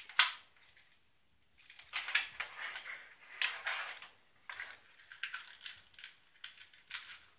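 Plastic parts of a Skylynx G1 Encore toy clicking and clattering as it is handled and transformed, a string of sharp knocks and rustles with the loudest just after the start.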